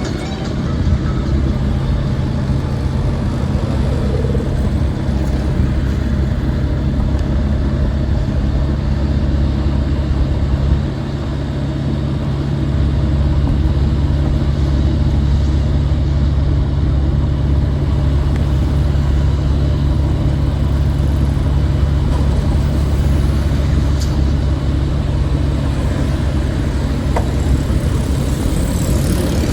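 Motor vehicle traffic with a steady low engine rumble that dips briefly about 11 seconds in.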